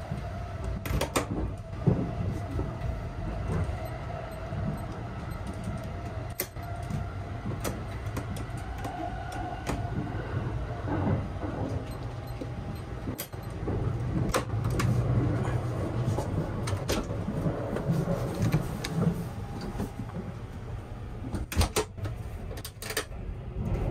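Steady low rumble and hum inside a Sunrise Izumo sleeper-train carriage. Over it come scattered clicks and knocks as the compartment door and its keypad lock are handled, with a cluster of sharp clicks about three quarters through.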